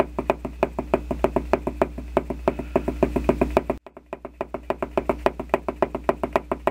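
Quick, even run of hard tapping knocks, about five or six a second, over a low hum, breaking off briefly nearly four seconds in and then resuming: a dubbed footsteps sound effect for the walking LEGO minifigures.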